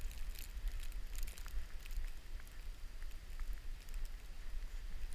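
Blizzard wind rumbling on the microphone, with light crackling and faint ticks.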